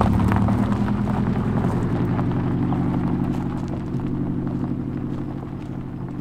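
Subaru Impreza WRX STI hatchback's turbocharged flat-four engine and exhaust rumbling with an uneven, lumpy pulse as the car pulls away at low speed, fading as it moves off.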